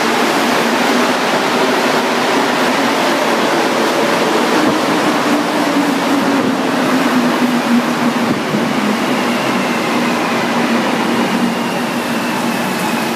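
Montreal Metro Azur (MPM-10) rubber-tyred train running into the station along the platform, its motors whining and the whine falling in pitch over the last few seconds as it slows toward a stop.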